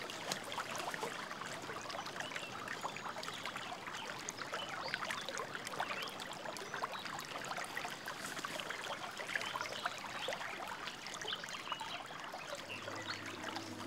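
Shallow river water trickling at the edge of a muddy bank, a steady watery hiss with many small splashing ticks from a hand dipping into the water.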